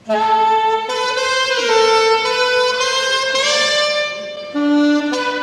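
A saxophone plays a melody in held notes that change every half second to a second, starting suddenly just after the opening; other pitched notes sound beneath it.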